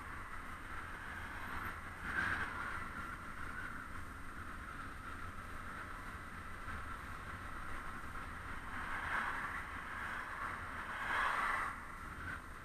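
Steady wind and rolling noise picked up by a camera on a moving bicycle, with passing motor traffic swelling up about two seconds in and twice more near the end.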